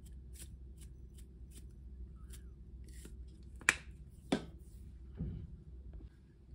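Grated parmesan shaken from its container into a small ceramic ramekin, heard as faint, evenly spaced taps, followed by two sharp clicks a little over half a second apart and a soft rustle.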